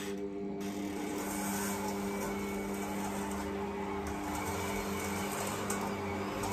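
Electric stand mixer running steadily while it kneads a stiff pizza dough, its motor giving an even, unchanging hum.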